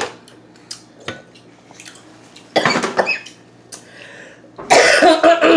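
Eating a seafood boil: light clicks and clatter of shells and utensils against a dish, with a short crackling burst about two and a half seconds in. Near the end a loud cough and throat-clearing, from food that is spicy.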